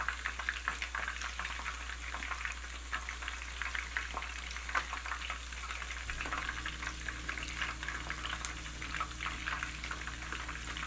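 A fillet knife cutting raw fish on a plastic cutting board, with small taps and clicks over a steady crackling hiss. A low hum joins about six seconds in.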